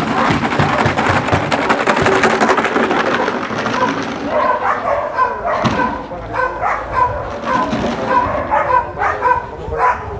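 Stone-filled plastic bottles shaken hard as a distraction, making a dense rattle for about four seconds. Then a run of short high calls follows, about two a second.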